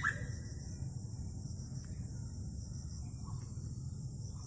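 Steady high-pitched chorus of insects in wet greenery, with a low rumble underneath.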